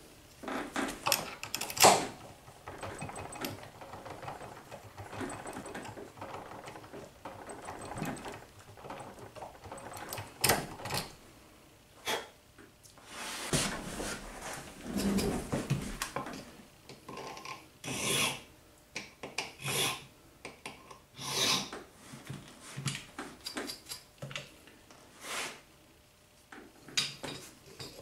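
Hand file working a key blank clamped in a vise, in irregular scraping strokes with a few sharp knocks and clicks between them, as the key's cuts are filed down while impressioning a key.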